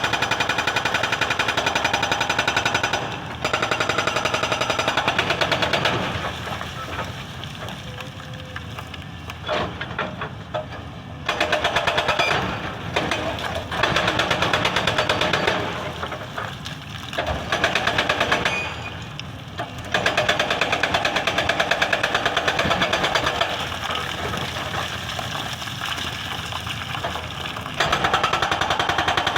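Excavator-mounted hydraulic breaker hammering at an old road surface: rapid, evenly spaced blows in bursts of a few seconds, with the excavator's engine running more quietly in the pauses between bursts.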